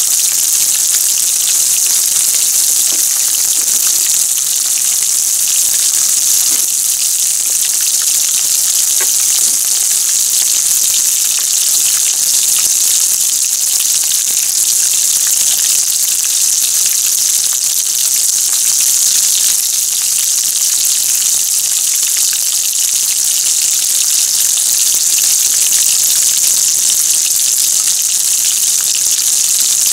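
Breaded croquettes deep-frying in a pan of hot oil: a steady sizzle with many small crackles.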